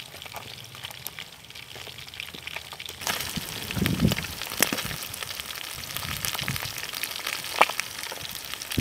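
Small whole fish shallow-frying in hot oil in a wok, a steady crackling sizzle with occasional sharper pops of spattering oil. It is fainter at first and grows clearly louder about three seconds in.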